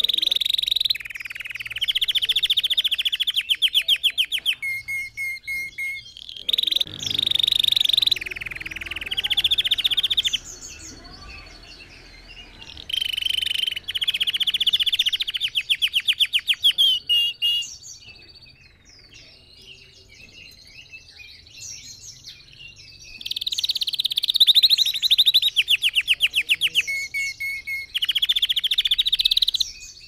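Red factor canary singing: long phrases of rapid trills and rolls, with short runs of repeated notes between them. The song drops to a quieter stretch for a few seconds in the middle, then picks up again.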